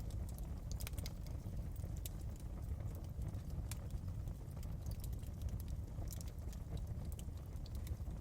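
Wood fire burning in a fireplace: a steady low rumble of flames with scattered sharp crackles and pops at irregular intervals.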